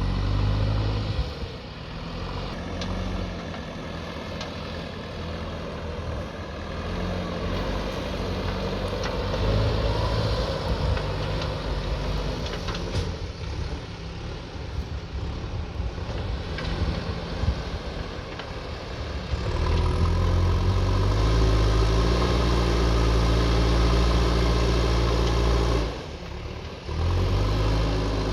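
Backhoe loader's diesel engine running and working under varying load, growing louder and heavier about two-thirds of the way in, with a brief sharp drop near the end.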